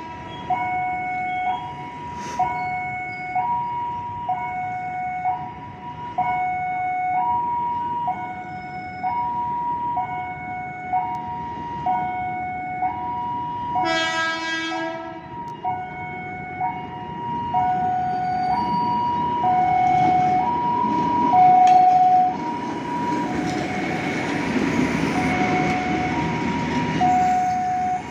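Railway level-crossing warning alarm sounding a steady two-tone chime, alternating between a low and a high note about once a second. About halfway through, a train horn blows once, for about a second. Then the rumble of the approaching train grows louder under the chime.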